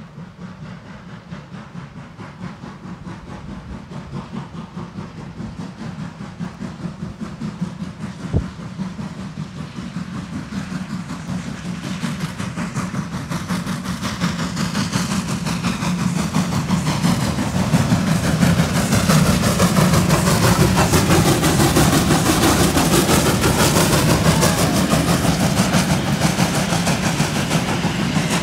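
Finnish Hr1 "Ukko-Pekka" steam locomotive hauling a train of coaches, growing steadily louder as it approaches and passes close by. The coaches' wheels then roll past on the rails near the end.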